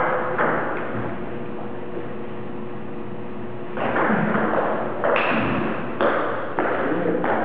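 Table tennis rally: a ball clicking off paddles and the table. There are three quick hits in the first second, then more hits about a second apart from a little before the middle on, each with a short echo.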